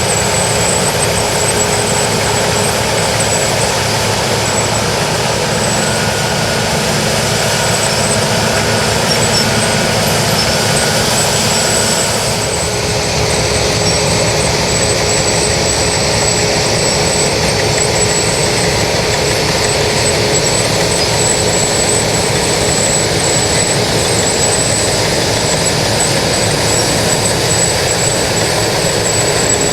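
New Holland TX68 combine harvester running steadily, a loud machinery drone with a steady hum and a thin high whine.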